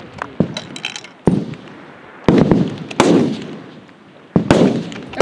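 Several rifle shots from F-Class target rifles firing on the firing line, coming at uneven intervals about a second apart. Each shot trails off in a long echo.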